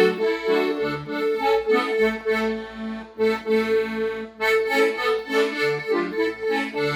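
Instrumental backing music for a gospel song, with no singing: sustained reedy notes over a bass line that changes every half second or so, and one note repeated in a steady pulse.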